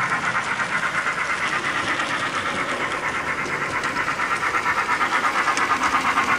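Steam-locomotive chuffing from the built-in sound unit of an HO-scale DC Thomas model locomotive: a fast, even chuff of about six beats a second, growing a little louder near the end.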